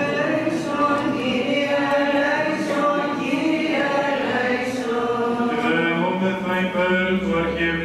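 Male voices singing Byzantine chant in a reverberant church, one melismatic line moving over a low note held underneath from about six seconds in.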